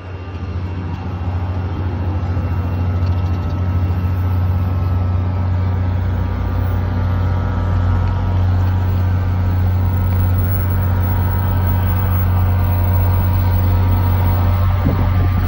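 NJ Transit GP40PH-2B locomotive's head-end power (HEP) generator running steadily: a loud, constant drone with a strong low hum and many steady tones above it, growing a little louder over the first couple of seconds.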